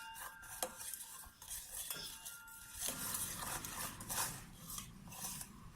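A spoon stirring in a bowl, clinking and tapping against its side again and again, with a brief ringing after the first clinks.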